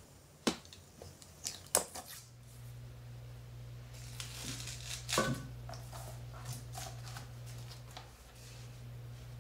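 A utility knife cutting a peel-and-stick vinyl tile, with a few sharp clicks. About two seconds in, a steady low hum starts, and the vinyl tile rustles and taps as it is handled and fitted around a toilet base on a cement floor.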